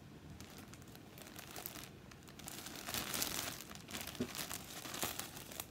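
Plastic packaging crinkling and rustling as a package of yarn is opened, louder over the second half.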